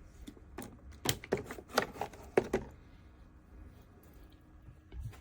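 A quick series of light clicks and knocks from small hard objects being handled, about eight in the first half, then quiet.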